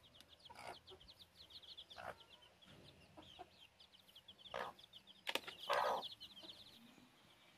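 Small chicks peeping rapidly in quick high chirps, thinning out toward the end. A mother hen clucks a few times over them, loudest about five to six seconds in.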